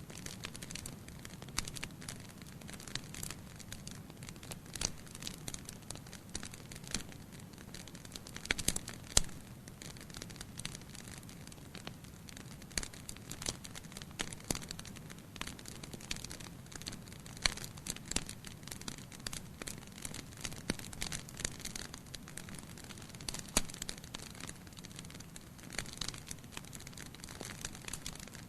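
Campfire crackling: irregular sharp pops and snaps of burning wood over a steady low rumble, with one louder pop about nine seconds in.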